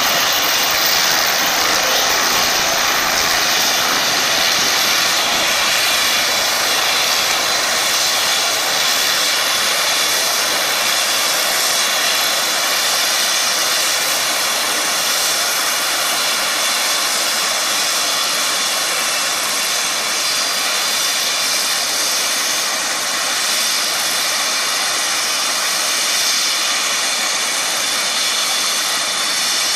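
Air ambulance helicopter sitting on the ground with its turbine engine running and main rotor turning: a steady high turbine whine over a rushing hiss, unchanging throughout.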